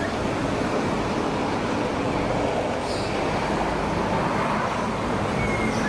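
Freight train's bulk wagons rolling along the track, a steady rumble of wheels on rail.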